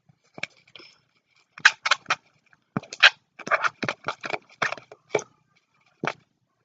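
Slime being stirred in a bowl with a utensil: a run of short scraping, clicking strokes in uneven clusters, at times about three or four a second.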